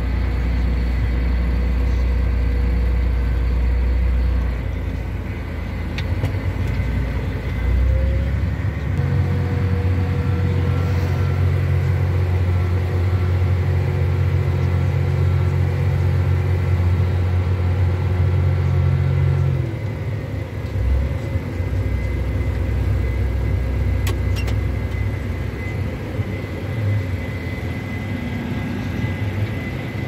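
A John Deere tractor's diesel engine running steadily, heard from inside its cab, with a combine working alongside. The low drone grows louder and deeper for about ten seconds in the middle.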